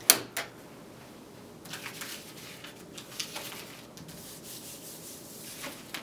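A Foley take: a sharp click at the start, then scattered rubbing and scraping noises.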